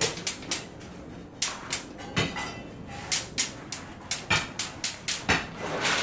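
Hand tools striking and working on steel rebar cages, making sharp, irregular metallic clinks and taps, about three a second.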